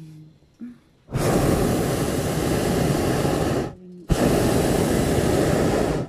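Hot-air balloon's propane burner firing in two long blasts, the first about two and a half seconds long and the second about two seconds, with a short break between them.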